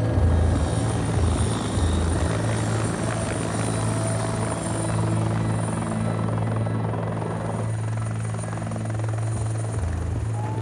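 Bell 212 twin-turbine helicopter running close by, a steady low rotor drone with a thin, steady high turbine whine over it.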